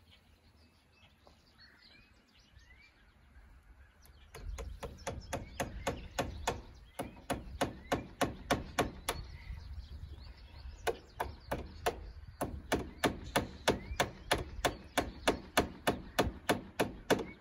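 Hammer driving fencing staples to tack poultry netting to the side of a building. The strikes start about four seconds in and come rapidly, about three a second, in runs with brief pauses.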